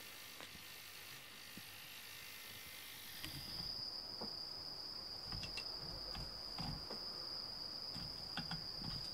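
Crickets chirping in one steady, unbroken high trill that starts about three seconds in, with a few low bumps and soft clicks alongside. Before it there is only a faint hiss.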